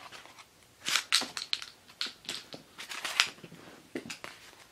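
Hands gathering up small electric retract units and their tangle of servo leads and connectors: a quick run of clicks, rattles and rustles from about a second in to just past three seconds, with a couple more clicks near the end.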